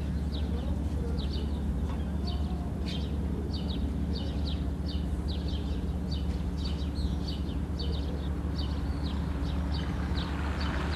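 Birds chirping, short high chirps about two or three a second, over a steady low machinery hum.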